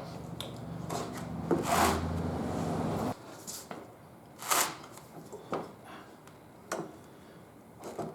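Scattered knocks, scrapes and rubs of a tire lever and stiff tire bead working against a motorcycle wheel rim on a manual tire changer, the wheel shifting on the stand as the bead is levered on. A low hum runs for about the first three seconds and then cuts off suddenly.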